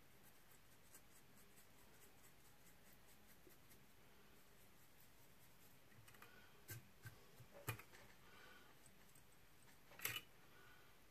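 A razor blade trimming a fly's spun deer-hair head: very quiet cutting with faint, evenly spaced ticks in the first few seconds, then a few sharp clicks, the loudest about two-thirds of the way in and near the end.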